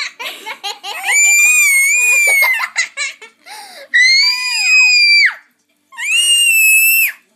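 A toddler's shrill, high-pitched screams, three long ones, the second sliding down in pitch at its end, with short giggles in between: a playful screaming game.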